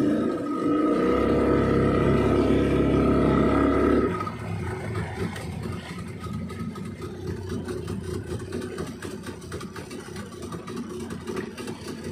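A wooden river boat's engine running steadily, then cut back abruptly about four seconds in to a much quieter, low running as the boat slows.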